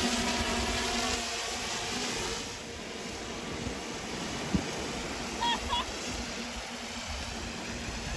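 Quadcopter fishing drone's propellers humming steadily as it flies with a beer can hanging on a line. The hum drops away after about two and a half seconds, leaving the hiss of surf and wind.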